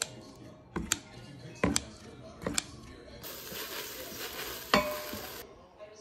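Kitchen food preparation: sharp clicks about a second apart, like kitchen scissors snipping soaked seaweed in a bowl. For about two seconds in the middle, an even sizzling hiss starts and stops abruptly.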